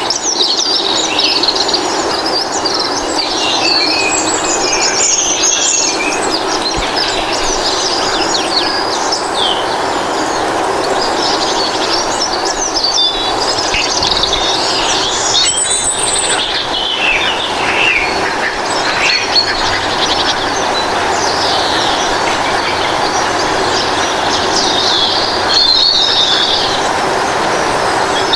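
A dense chorus of many small birds chirping and twittering throughout, over a steady rushing background sound.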